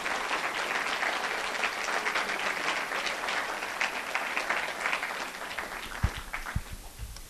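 Audience applauding at the end of a talk, the clapping thinning out and dying away near the end, with a few dull thumps.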